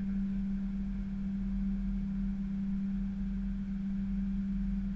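Airliner cockpit on the runway: the engines give a steady low hum with an even rumble beneath it, holding one pitch without change.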